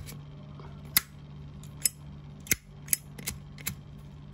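Zippo lighter clicking as it is handled: about seven sharp metallic clicks at uneven intervals, over a low steady hum.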